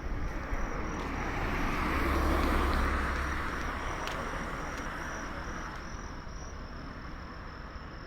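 A road vehicle passing by: its noise and low rumble build to a peak about two and a half seconds in, then slowly fade away.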